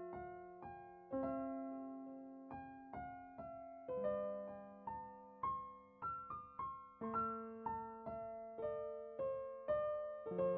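Background piano music: a slow, gentle melody of single struck notes over held bass notes, each note fading after it is played.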